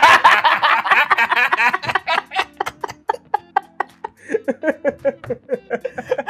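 Two men laughing hard together in quick, breathy pulses. The laughter is loudest at first, dies down about three seconds in, then picks up again.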